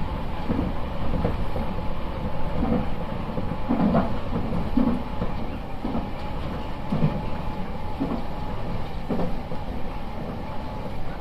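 Nankai electric train running, heard from inside the front car: a steady rumble of wheels on rail with a faint steady whine and scattered low knocks.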